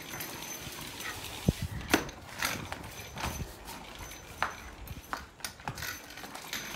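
A child's kick scooter rolling over tiled paving, with irregular sharp taps and clicks from footsteps and the wheels, two louder knocks about a second and a half and two seconds in.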